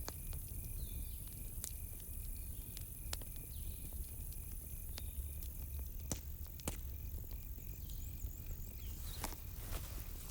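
Campfire crackling, with sharp pops scattered through, over a cricket chirping in a steady even pulse and a few faint bird chirps.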